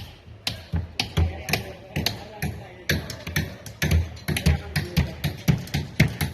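Rapid, irregular knocking, three or four sharp knocks and thuds a second.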